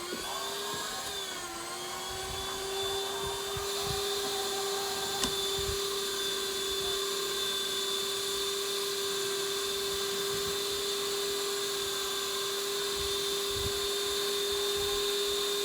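Electric kitchen mixer motor spinning up and then running at a steady speed with a high, even whine.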